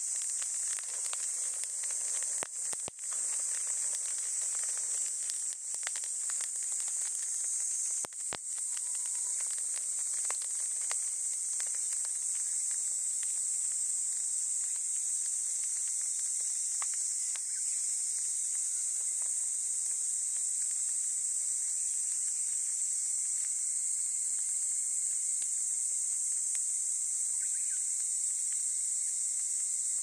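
A steady, high-pitched chorus of insects. A few sharp crackles from a small fire of dry twigs, grass and leaves come in the first nine seconds or so.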